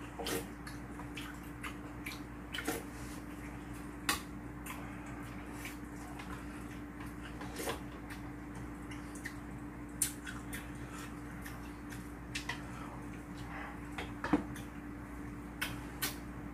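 Quiet eating of yukgaejang soup: wet slurping and chewing, with a handful of light clicks of chopsticks and spoons against bowls. A faint steady hum sits underneath.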